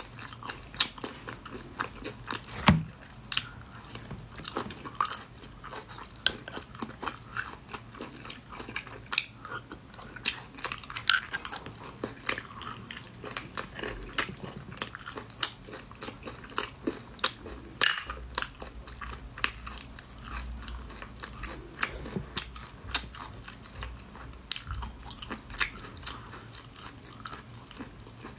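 Close-miked eating of cooked snails: biting and chewing with many small sharp clicks and smacks as the meat is pulled from the shells, two of them louder, one a few seconds in and one a little past halfway.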